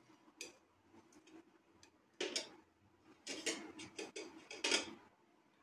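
Faint clicks and scrapes of a knife against a ceramic plate as cake is cut and a slice is eased out: a click near the start, another about two seconds in, then a run of taps and scrapes for the next couple of seconds.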